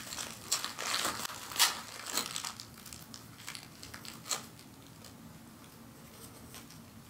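Small paper-and-plastic packaging crinkling and rustling as it is handled and opened by hand, in irregular crackles that die away after about four or five seconds.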